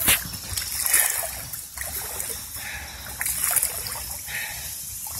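Footsteps in boots wading through floodwater, a splash and slosh with each step, about one step a second.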